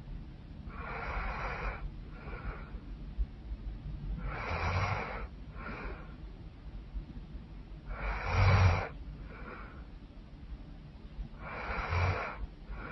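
A woman snoring loudly: four long rasping snores about every three and a half seconds, each followed by a shorter, softer breath, the loudest about two thirds of the way through.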